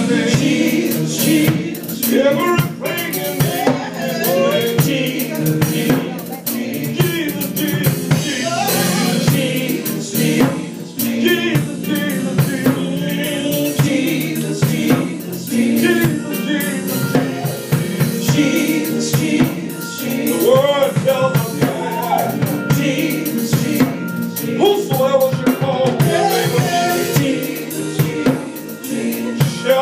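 Live gospel praise music: several singers on microphones singing over a drum kit that keeps up a steady beat.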